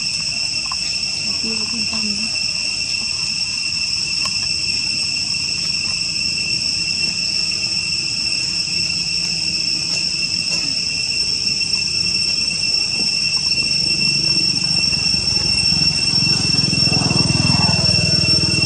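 Insect chorus of crickets or cicadas, a steady high-pitched drone held on a few fixed pitches. A low rumble swells beneath it near the end.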